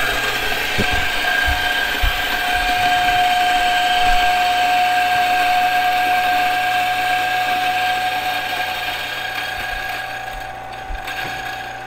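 Turin 64SD single-dose espresso grinder's motor running and its 64 mm burrs grinding coffee beans, a steady whine over a gritty grinding noise. About ten seconds in the grinding noise thins and drops as the last beans run through, while the motor keeps running.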